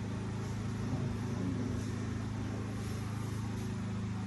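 A steady low hum with several even tones, unchanging throughout.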